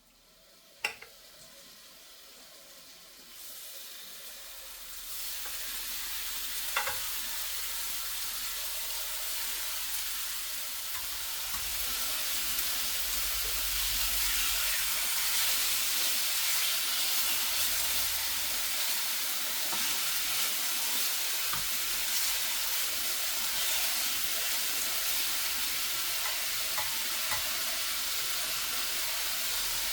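Food frying in a hot pan: the sizzle builds up over the first few seconds, then holds steady, with a few light clicks and knocks.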